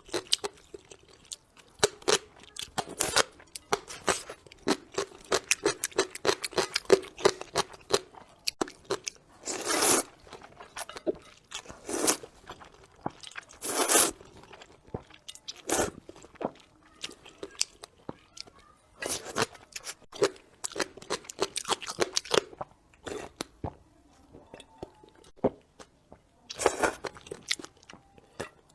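Close-miked eating: crunchy bites and chewing in irregular clusters, with a few longer, louder crunches.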